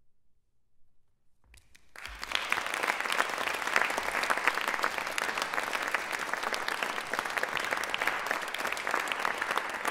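Audience applauding: near silence at first, then dense, steady clapping breaks out about a second and a half in.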